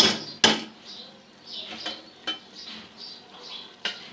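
Metal spoon clanking sharply against a pressure cooker pot twice, then softer scraping and stirring with a few lighter knocks as boiled chickpeas are turned in ghee for frying.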